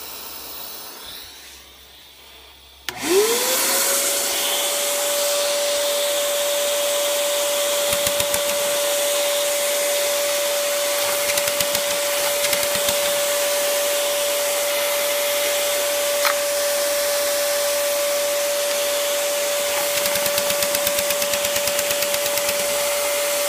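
A faint hiss of compressed air from the opened valve, then about three seconds in a Craftsman vacuum cleaner motor switches on. It spins up to a steady high whine that holds level, with short spells of rapid ticking now and then.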